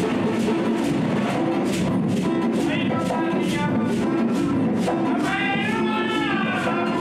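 Garifuna hand-drum ensemble of congas and a rope-tensioned wooden drum playing a steady groove, with sharp strokes about four a second. Several men's voices sing over it, most strongly from about five seconds in.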